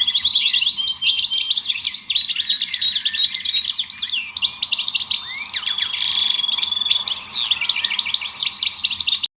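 A chorus of many small songbirds chirping and trilling over one another, a dense run of rapid high chirps; it cuts off abruptly near the end.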